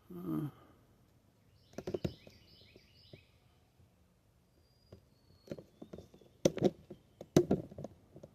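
Sharp clicks and knocks of bicycle parts and tools being handled, loudest about six and a half and seven and a half seconds in. A bird chirps a short run of quick falling notes about two seconds in.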